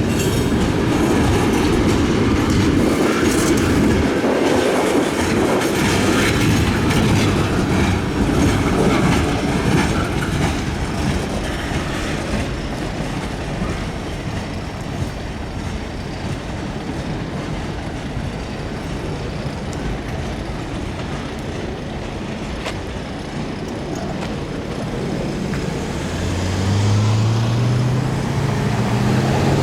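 Open rock hoppers and a tank car of a slow freight train rolling past, a steady rumble with wheels clicking and clattering over the rail joints. Near the end a motor-vehicle engine rises in pitch as it speeds up.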